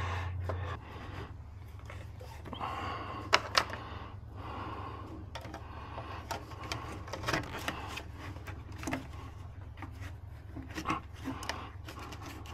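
Handling noises as a rubber intake coupler with hose clamps is worked by hand onto a cold-air-intake tube: scattered light clicks, knocks and rubbing, a few sharper clicks about three and a half seconds in. A steady low hum lies underneath.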